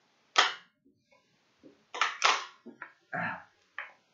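Drinking from a plastic water bottle: a series of sharp clicks and crackles from the bottle and the mouth. The loudest is a sharp snap about half a second in, then a cluster of clicks about two seconds in.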